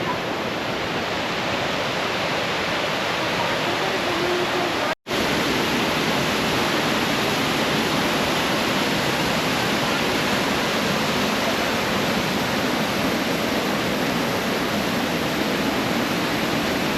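Running water making a steady, even rushing noise, cut off for a split second about five seconds in and then carrying on unchanged.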